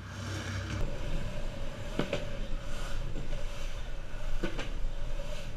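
Longboard wheels rolling over a concrete walkway: a steady rumble and hum, with a few sharp clacks as the wheels cross cracks and joints in the pavement, about two seconds in and again later.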